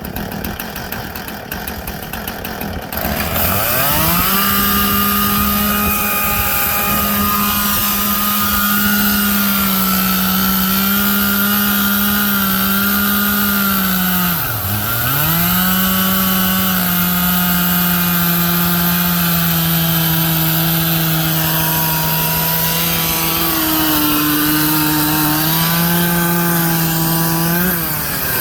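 Chainsaw revving up from idle about three seconds in and running at high, steady revs through a cut in wood. Its pitch dips sharply once about halfway, recovers, and runs on a little lower before falling away at the end.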